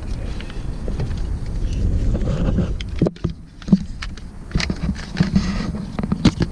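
Sharp plastic clicks and knocks as the steering-wheel switch controls and trim pieces are worked loose by hand, over a low rumble of handling noise. There are a few separate clicks, the sharpest a little past the middle and near the end.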